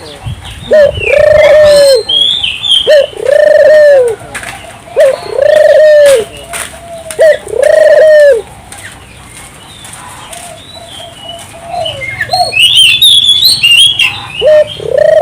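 Barbary doves cooing in a quick run, each call a short rising note then a long arched coo, about once a second. About halfway the cooing pauses while small birds chirp higher up, and one more coo comes near the end.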